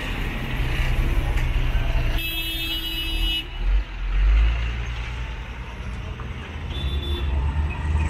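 Street traffic: a steady low engine rumble from moving motor vehicles, with a horn sounding once for about a second a little over two seconds in, followed by a brief loud low rumble.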